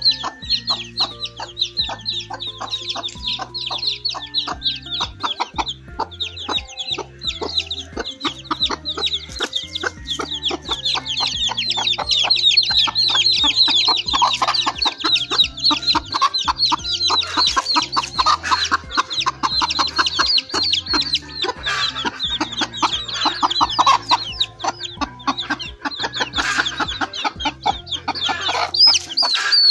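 A brood of young chicks peeping continuously, a rapid stream of short high peeps that fall in pitch, with a hen clucking among them.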